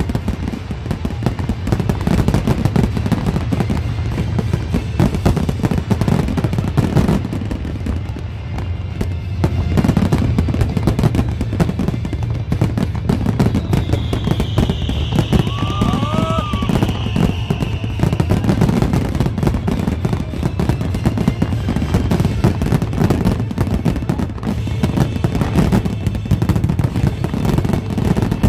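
Fireworks display barrage: a dense, continuous run of rapid bangs, booms and crackling from aerial shells and ground fountains, with music playing underneath. A high falling whistle sounds about halfway through.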